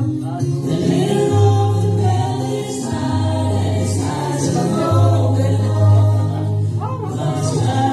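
Background music: a choir singing a slow song over held bass notes that change every second or two.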